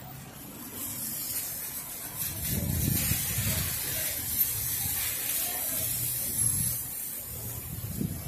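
Cars driving past on a rain-soaked road, their tyres hissing through the surface water over a low traffic rumble. The hiss swells as vehicles pass close, about two seconds in, and eases off near the end.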